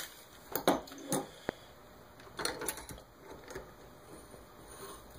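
A few light clicks and taps from small metal parts and hand tools being handled, most of them in the first three seconds: a grub screw is being taken out of a metal retract trunnion with a small driver, and the part is handled at a small bench vise.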